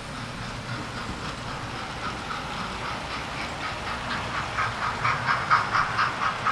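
Model trains running on a layout track, with a rhythmic clicking about four times a second that grows louder in the second half as the trains pass close by.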